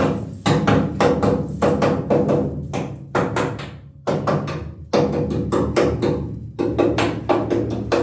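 A hand tool tapping along the bare steel windshield frame of a Datsun 280Z, checking the metal for rust-through. Quick, uneven strikes come about three a second, many with a short ring after them.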